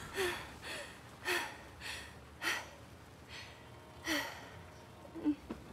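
A frightened girl breathing hard: a string of quick, shaky gasps, about one every half second to second, each with a slight catch in the voice.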